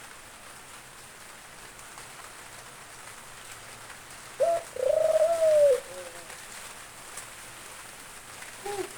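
White Barbary dove (puter) cooing once about halfway through: a short note, then a longer arched coo. Rain falls steadily underneath.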